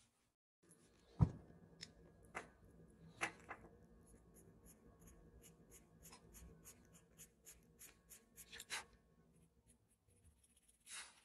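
Pencil point on paper making short, quick strokes, a steady series of light scratches about three a second. A single sharp knock about a second in.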